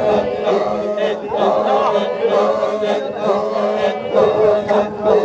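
Maasai men chanting together: a steady low drone held under overlapping voices singing a repeated chant.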